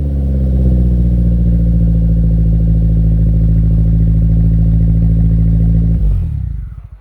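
Nissan March K12's four-cylinder engine idling through a one-off rear-exit exhaust with a 90 mm Fujitsubo silencer, a bit loud and deep. The pitch settles slightly at first as the revs come down, holds steady, then drops and dies away about six seconds in.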